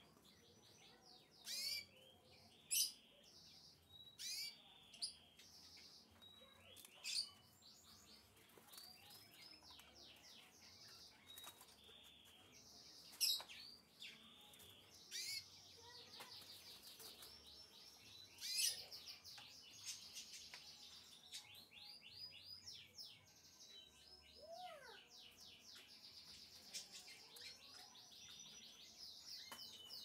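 Canaries chirping and singing in rapid high trills, with sharp, louder single chirps now and then.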